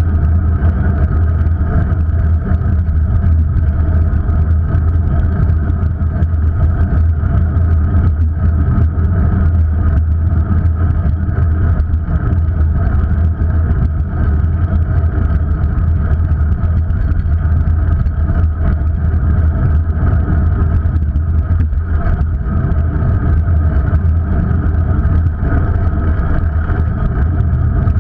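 Steady ride noise from a camera rolling along a street: a strong low rumble of wind and rolling wheels with an even, unchanging droning hum over it.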